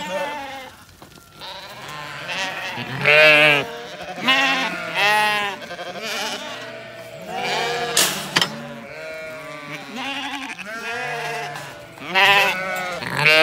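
A flock of Zwartbles sheep, ewes and lambs, bleating over one another as they crowd in for the feed bucket, with the loudest calls about three seconds in and near the end. A single sharp knock sounds about eight seconds in.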